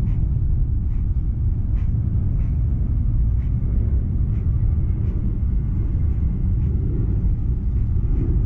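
Wind buffeting the microphone: a loud, steady low rumble, with a few faint ticks now and then.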